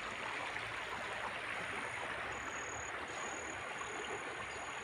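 Muddy floodwater rushing through a swollen creek after heavy rain, a steady rushing noise.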